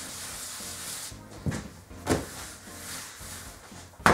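A hand rubbing and spreading flour across a stainless steel worktop with a swishing hiss, then two soft thumps as the sheet of dough is turned over onto the floured steel, and a sharper knock near the end.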